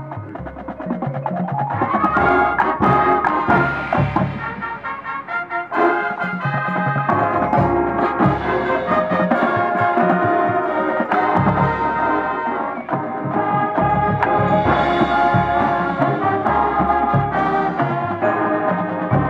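Marching band playing: sustained brass chords over drum and timpani hits.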